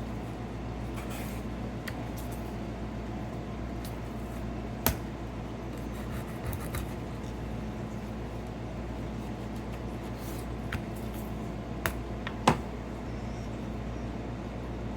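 Kitchen knife cutting a fish on a cutting board: faint scraping and rubbing strokes with a few sharp taps of the blade or fish on the board, one about five seconds in and three more close together later, over a steady low hum.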